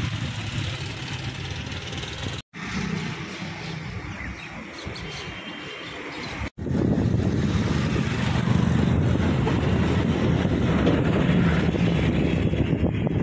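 Steady rushing vehicle and wind noise recorded on the move, with no clear tones. It cuts out abruptly twice, and after the second break it is much louder and deeper.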